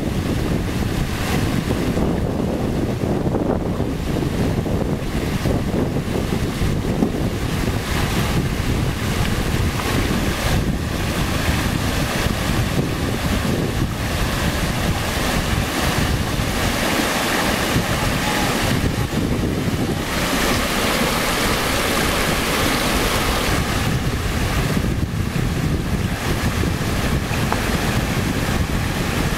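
Fast stream rushing over rocks and small rapids: a steady, loud rush of whitewater.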